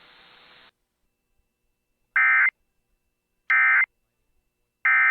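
Emergency Alert System end-of-message data bursts. A moment of faint hiss gives way to three identical short, loud bursts of digital warbling tone, about 1.3 s apart, marking the end of the alert.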